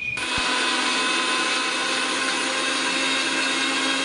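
Bajaj electric mixer grinder switched on and running steadily at one pitch, its blades grinding khosla seeds with onion and green chillies into a paste.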